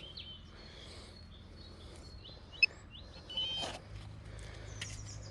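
Small birds chirping in short high notes, with a single sharp click about two and a half seconds in and a brief rustle just after.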